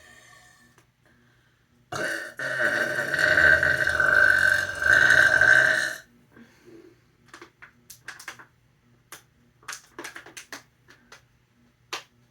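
A long, loud burp lasting about four seconds, starting about two seconds in, followed by a scatter of short sharp clicks.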